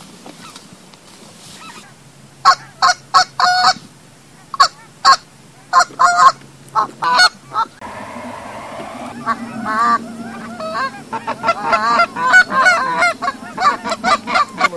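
Goose honks and clucks: loud, short single calls start about two and a half seconds in, then from about eight seconds many honks overlap into a continuous chorus.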